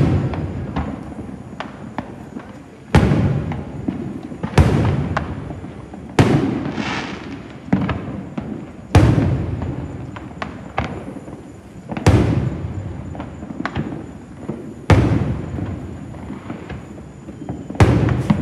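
Aerial firework shells bursting, a loud boom every two to three seconds, about eight in all, each followed by a rolling echo that dies away, with smaller pops and crackles in between.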